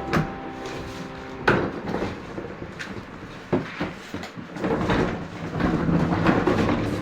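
A few sharp knocks and clatters of something being handled, over a steady rushing noise that grows louder in the second half.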